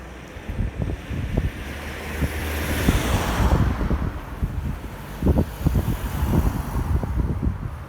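Wind buffeting the microphone with irregular low thumps throughout. A car passes by, swelling to its loudest about three seconds in and then fading.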